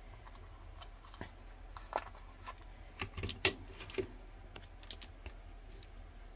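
Scattered light clicks and faint rustling from a coin in its plastic holder being handled, with a few sharper clicks between about two and four seconds in, the sharpest about three and a half seconds in.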